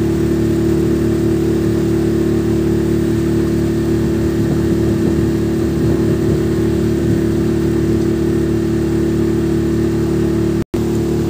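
Motorboat engine running steadily at constant speed, a loud even drone with a strong steady hum, cutting out for a split second near the end.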